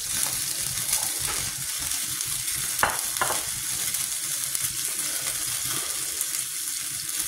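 A pan of chicken and sofrito sizzling steadily while brandy burns off in a flambé, with two sharp clicks a little under three seconds in.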